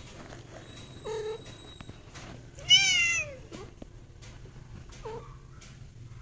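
Domestic cats calling during mating: a short mew about a second in, then a loud cry about three seconds in that rises and falls in pitch, and a short falling mew near the end.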